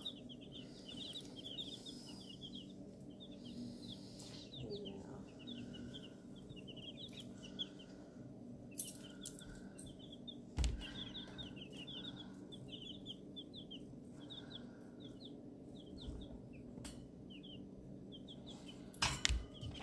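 A brood of baby chicks peeping without a break, many short high chirps overlapping. There are a few sharp knocks among them, the heaviest a single thump about ten seconds in.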